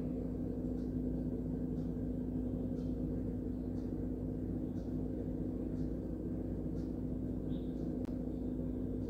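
Steady low mechanical hum with a held tone, and a faint tick about once a second.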